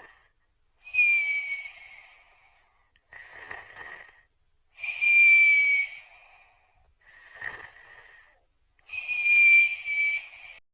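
A person snoring with a whistle: each short raspy snoring inhale is followed by a high whistling exhale about a second long that dips slightly in pitch. The cycle repeats about every four seconds, giving three whistles.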